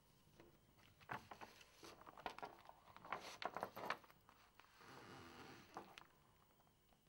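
Glossy magazine being handled: faint paper rustling and sliding in a series of short scrapes and taps, with a smoother brushing stretch near the end as it is lifted.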